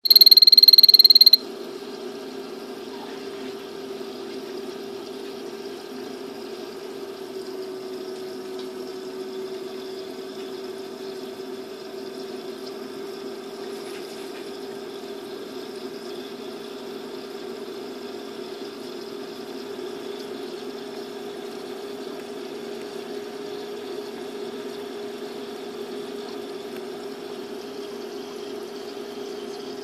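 A loud, high electronic beep lasting about a second, then a steady low hum with a faint hiss that does not change.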